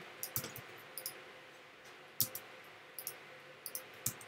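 Computer mouse and keyboard clicks: about ten faint, short clicks at uneven spacing as text is selected, copied and pasted.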